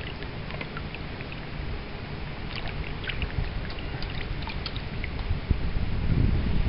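Water dripping and trickling off a wild brown trout held just above the stream, scattered small drips over a steady low rush of moving water. The low rush grows louder near the end.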